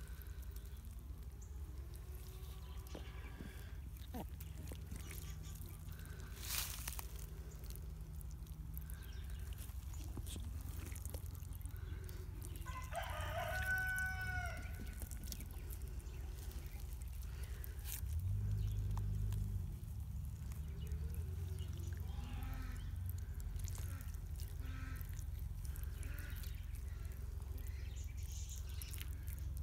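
A rooster crows once, a single call of about a second and a half near the middle, over a steady low rumble. Fainter short chicken calls follow later.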